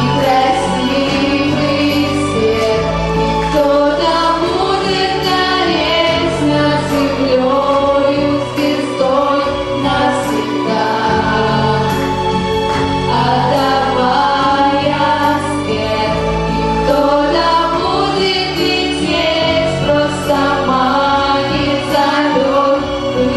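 A group of teenage girls singing a song together, led by two girls on handheld microphones, over instrumental accompaniment with held low bass notes.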